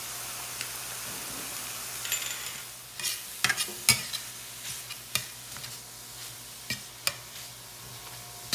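Ground chicken sizzling in a stainless-steel skillet, then a metal spatula scraping and clicking against the pan as the meat is broken up and stirred. The clicks start about three seconds in, loudest near four seconds.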